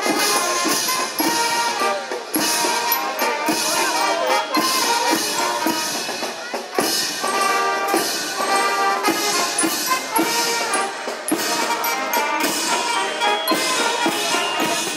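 Brass band playing: trumpets, tubas and horns sounding a tune over bass drum and snare drums.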